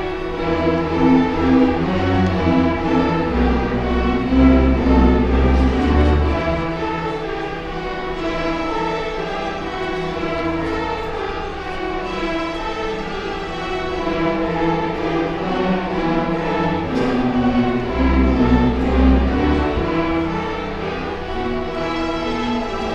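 A school string orchestra playing, violins carrying the melody over sustained chords, with heavier low string notes swelling twice.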